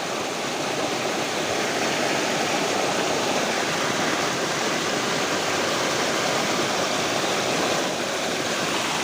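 Heavy rain and rushing rainwater making a steady, even rush of water noise.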